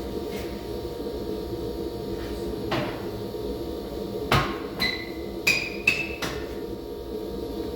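Sharp metal strikes, about six in a few seconds, several ringing briefly with a clear metallic note, over a steady hum: metal tool work on a wheel during a tire change.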